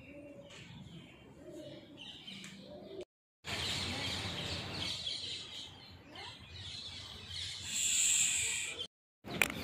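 Faint outdoor ambience with birds calling; a high, shrill call stands out for about a second near the end. Faint distant voices in the first three seconds.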